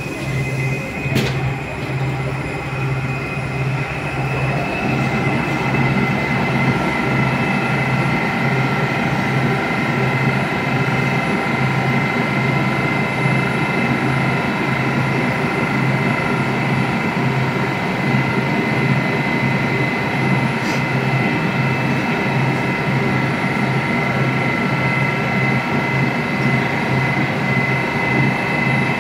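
Moscow Metro train standing at the platform with its doors open, its onboard equipment running: a steady high whine over an even, pulsing low hum. A rougher rumble builds in from about four seconds in, and there is a single sharp click about a second in.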